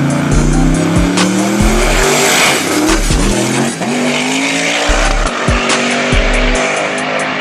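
Turbocharged LS V8 car accelerating hard, its engine note climbing, dropping at a gear shift about four seconds in, then climbing again. A thumping hip-hop beat plays over it.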